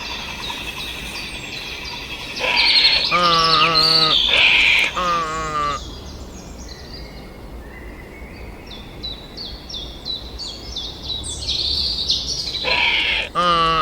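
Birds chirping and singing, with a lower, wavering call sounding twice a few seconds in and again near the end.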